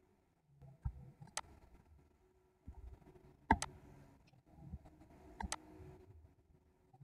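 Computer mouse clicking: three sharp clicks about two seconds apart, with fainter knocks between them.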